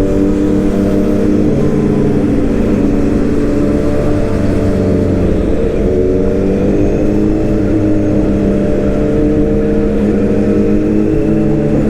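Excavator engine running steadily under load, its pitch rising near the end as it revs up.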